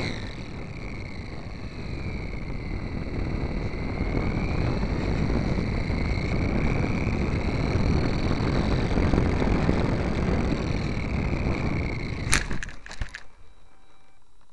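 HobbyZone Super Cub RC plane gliding in with its electric motor throttled back, heard from a camera on the plane: rushing air noise and a faint wavering motor whine. About twelve seconds in, a sharp knock and a few clattering impacts as the plane hits the grass and flips over, then only a low hiss.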